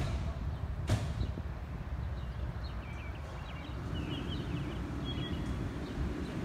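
Outdoor ambience: a steady low rumble with short bird chirps now and then, and a single sharp click about a second in.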